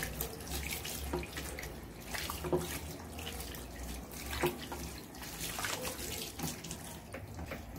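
Water running from a tap into a sink while soapy hands are rinsed under the stream, with a few louder splashes.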